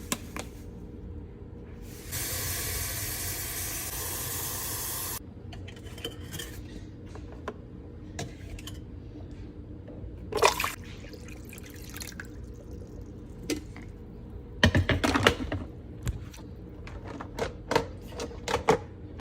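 Water running or pouring steadily for about three seconds, starting and stopping sharply, followed by scattered clicks and knocks of handling.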